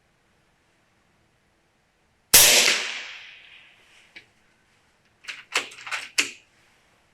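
An FX Impact M3 .30-calibre PCP air rifle fires one shot about two seconds in, and the report rings off over about a second and a half. A faint click follows, then a quick run of four or five sharp metallic clacks as the rifle's action is worked for the next pellet.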